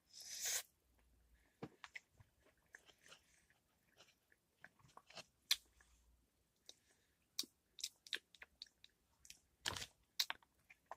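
Close, wet mouth sounds of chewing a sticky, gooey edible slime: scattered soft clicks and smacks, with a brief louder cluster near the end.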